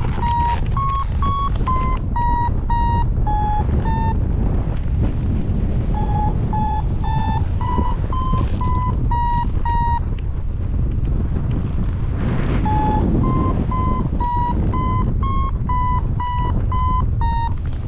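Paragliding variometer beeping its climb tone, short beeps about two a second whose pitch shifts up and down with the climb rate: the wing is going up in lift. It goes quiet twice before resuming, over heavy wind noise on the microphone.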